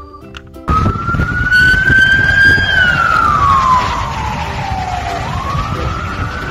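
Ambulance siren wailing: it starts suddenly under a second in, climbs a little, sweeps slowly down in pitch, then rises again, over a low rumbling noise.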